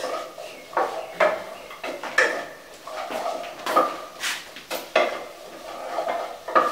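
Cooking spoon stirring vegetables in a metal pot, knocking and scraping against the pot's sides and bottom in irregular strokes, about one or two a second.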